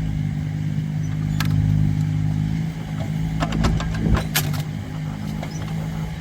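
Excavator's diesel engine running steadily under digging load, with metallic clinks and knocks, one about a second and a half in and a cluster from about three and a half to four and a half seconds in.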